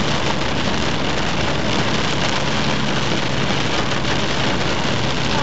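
Torrential rain drumming on a car's roof and windscreen, heard from inside the cabin as a steady, dense hiss, with the car's engine humming low underneath.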